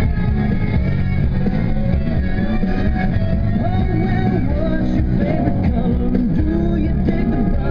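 Rock music with guitar playing steadily throughout.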